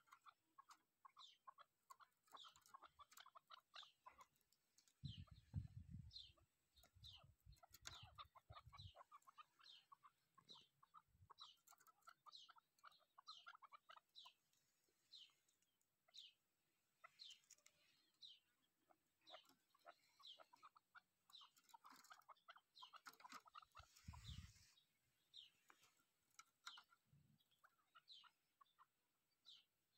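Female chukar partridge calling: runs of rapid clucking notes mixed with short, falling high chirps, repeated throughout, faint. Low rumbling thumps break in about five to nine seconds in and again near twenty-four seconds.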